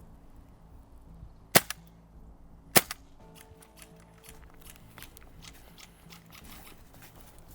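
Gas blowback airsoft gun firing two sharp single shots about a second apart, followed by fainter scattered clicks and pops.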